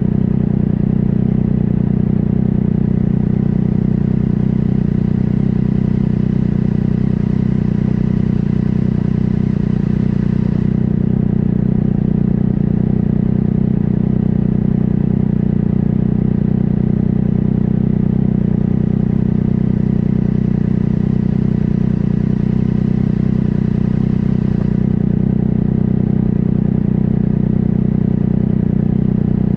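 Motorcycle engine idling steadily, heard up close from a camera mounted on the bike itself, with no revving.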